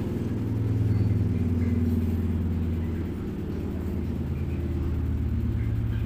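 LG top-load fully automatic washing machine on its spin cycle: a steady low hum and rumble from the motor and spinning drum. The machine is vibrating a little, which is put down to the light load of clothes in the drum.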